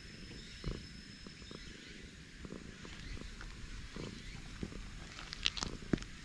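Ginger tabby cat purring close to the microphone, with a few soft knocks and rustles, the sharpest two near the end.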